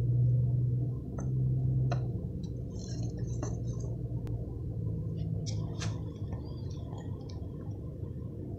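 A steady low hum, strongest in the first two seconds, with a few faint clicks and light rustles over it.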